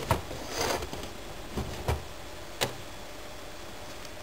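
Four or five scattered clicks and knocks from the plastic keys of a 1969 PIKO dat educational computer being pressed and set, with a brief rustle near the start.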